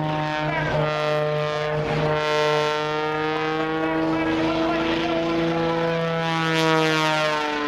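Propeller airplane engine running overhead, a steady drone whose pitch wavers slightly.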